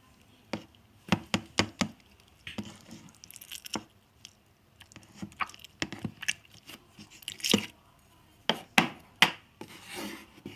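Yellow slime being squeezed and pressed by hand, giving an irregular series of sharp clicks and air-bubble pops with soft squishing between them, loudest in a quick run about a second in and again near the end.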